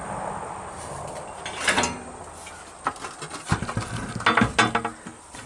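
Handling noise: a string of sharp clicks and clinking knocks, some with a brief metallic ring, clustered in the second half, after a steady rushing noise that fades over the first two seconds.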